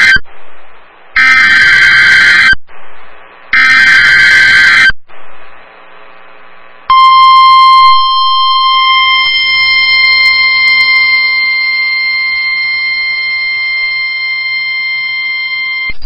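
NOAA Weather Radio emergency alert. The end of one SAME header data burst is followed by two more, each a harsh buzzing warble about a second and a half long with short gaps between them. About seven seconds in, the steady 1050 Hz weather-radio alert tone starts, drops somewhat in level a second later, and holds for about nine seconds.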